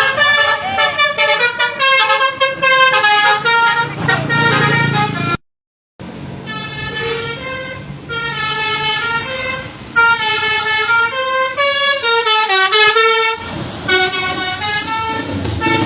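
Multi-tone Basuri 'telolet' bus horn playing a quick tune of stepped notes. It breaks off for a moment about five seconds in, then plays again. In the last couple of seconds it gives way to a noisier sound with only a few horn notes.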